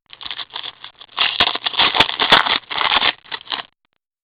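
Trading card packaging crinkling and cards being handled: a run of crackles and scrapes with a few sharp clicks that stops suddenly near the end.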